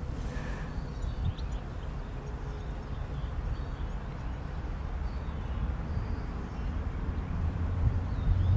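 Steady low outdoor rumble with a few faint bird chirps.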